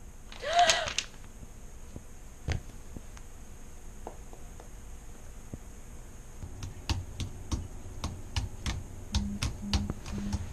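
Typing on a computer keyboard: scattered key clicks at first, turning into quick steady typing in the second half. Near the end a phone lying on the desk starts buzzing on vibrate for an incoming call, in short regular pulses about two a second. A brief vocal cry comes about half a second in.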